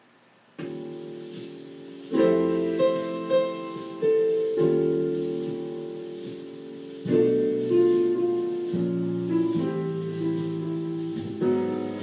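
Piano music played from an iPod through a home stereo system, coming in about half a second in after a near-silent moment, with chords and sustained notes that ring and fade.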